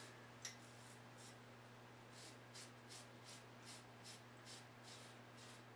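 Faint, rhythmic scraping of a Gillette New Improved safety razor drawn over lathered stubble, about two to three short strokes a second, over a low steady hum.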